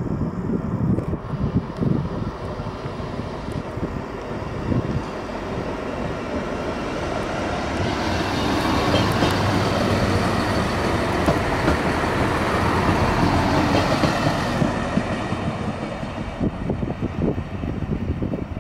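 Siemens Desiro diesel railcar passing close by: the engine and the wheels on the rails swell to a peak in the middle and fade again as it moves away.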